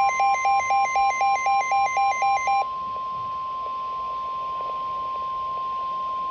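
Emergency alert tones: a warbling two-pitch alarm switching about three to four times a second, which stops about two and a half seconds in, over a steady single-pitch tone that carries on throughout.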